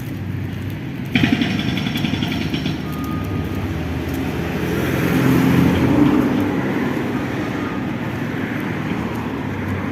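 Road traffic: motor vehicle engine and tyre noise, swelling to a peak about five to six seconds in as a vehicle passes, then easing off.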